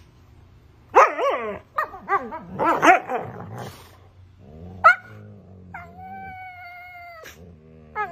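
Huskies play-fighting and "talking": a run of wavering, yowling calls and yips, a short sharp cry, then one long held whining note about six seconds in.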